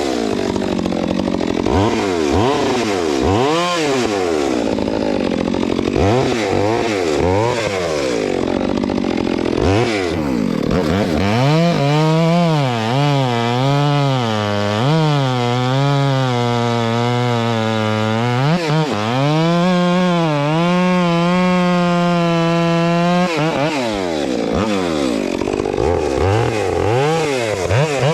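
Stihl MS 462 C two-stroke chainsaw bucking hickory logs. Its engine speed swings up and down repeatedly, then for about ten seconds in the middle it holds lower and wavers under the load of a long cut before rising and falling again.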